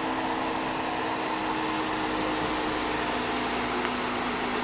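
Rented Jeep Rubicon's engine running steadily, a constant hum under an even wash of noise.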